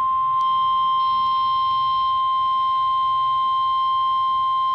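NOAA Weather Radio 1050 Hz warning alarm tone: a single steady, loud, high-pitched tone over faint radio static. It signals that a warning, here a severe thunderstorm warning, is about to be broadcast.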